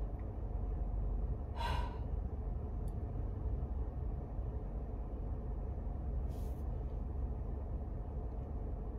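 A woman's audible breaths, a sigh near the start and a short sniff-like breath about six seconds in, over the steady low rumble of a car's interior.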